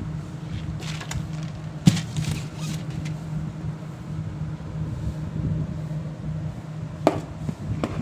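Plastic storage jars knocking against a refrigerator shelf as they are set down: a sharp knock about two seconds in and another near the end, over a steady low hum.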